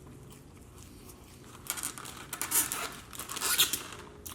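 Takeout wings and fries being handled: a run of rustling and tearing noises starting about a second and a half in and lasting a couple of seconds.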